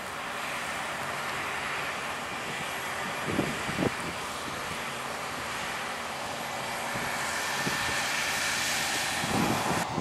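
Claas Lexion 7500 combine harvester at work cutting and threshing barley: a steady, loud mechanical roar of engine, fans and threshing gear. A couple of brief low thuds sound about three and a half seconds in.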